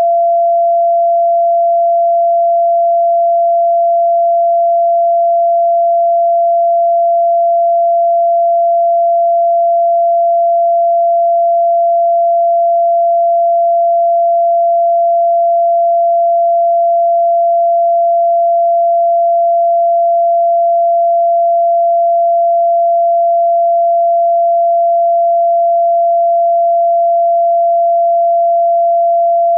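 A pure sine tone held steady at 682.85 Hz. This is the note F (Fa) in the fourth octave of a scale tuned to A = 432 Hz.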